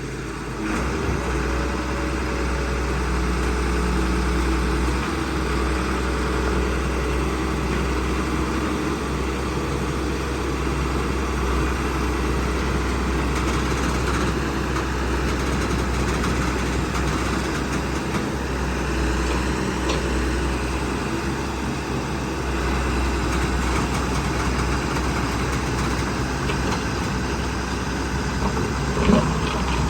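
Heavy diesel engine running steadily at a low, even pace, with a couple of sharp knocks near the end.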